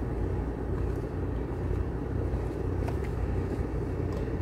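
Steady low rumble with a faint hum, unbroken, and a couple of faint ticks about three seconds in.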